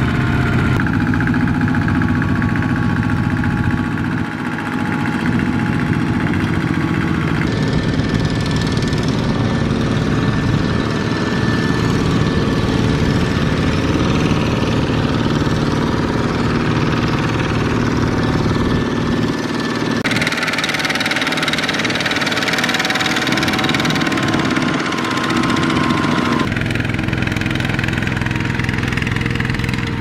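Single-cylinder diesel engines of two-wheel walking tractors running steadily while pulling loaded trailers through a muddy rice field. The sound changes abruptly a few times.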